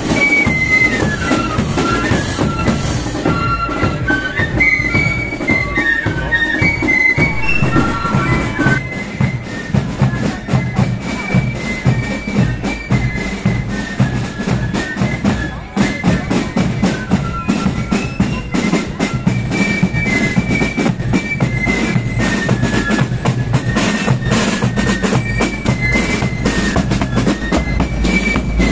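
Marching flute band playing a tune on flutes over bass drum and side drums. The music breaks off abruptly about halfway through and another flute band's tune takes over.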